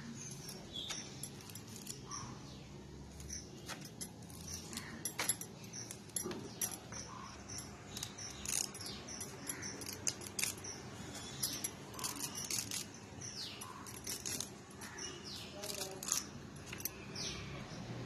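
Moringa (drumstick) leaves being stripped by hand from their stems into a bamboo tray: a run of small crisp clicks and rustles as leaflets snap off. Short high bird chirps are heard in the background, mostly in the second half.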